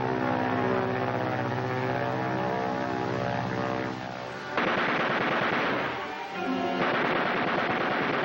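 Old 1940s film soundtrack: a sustained droning chord whose pitches shift and slide for about four and a half seconds. It is cut off by a sudden loud rushing noise that dips briefly around six seconds and then returns.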